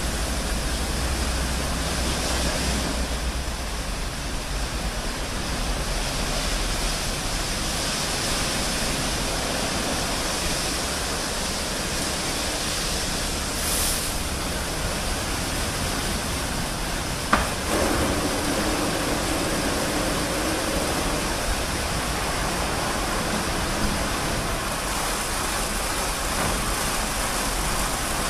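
Automatic rollover car wash gantry at work: a steady rush of water spray and machine noise. About seventeen seconds in there is a sharp knock, followed by a low steady hum for a few seconds.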